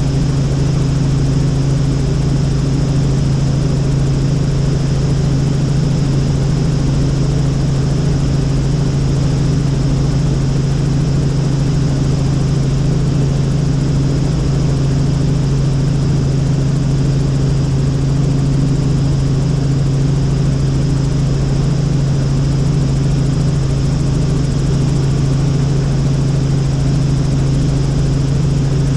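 Helicopter in flight: its engine and rotor make a loud, steady drone with a strong deep hum that does not change.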